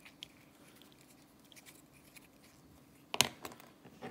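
Small clicks and taps from a plastic superglue tube and a small wooden lure being handled over a cutting mat, with one sharp, louder tap about three seconds in and a little clatter near the end.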